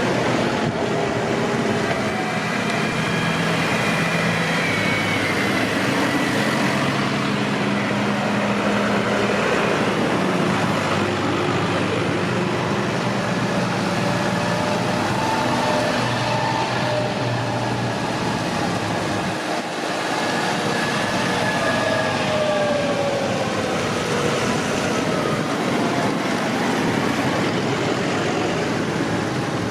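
Several tractor engines running as a line of tractors drives past on the road, their engine notes overlapping and sliding up and down in pitch as they go by.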